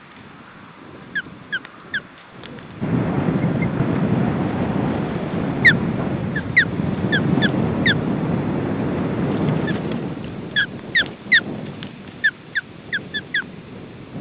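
Juvenile ospreys calling from the nest in short, high chirps, in three bursts. A gust of wind rumbles on the microphone from about three seconds in to about ten seconds in.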